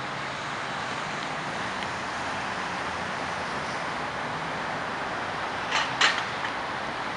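Steady city traffic noise from cars and buses on a boulevard and an elevated expressway. Two sharp clacks come close together about six seconds in.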